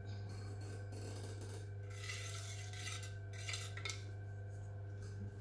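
Flat brush stirring thick black slip in a plastic tub, scraping against the sides in short scratchy bursts about two seconds in and again around three and a half seconds.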